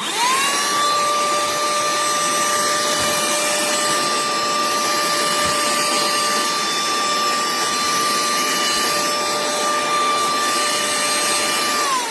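Cordless handheld mini car vacuum switched on. Its motor spins up within a fraction of a second and then runs steadily with a high tone over a rush of air. Near the end it is switched off and begins to wind down in pitch.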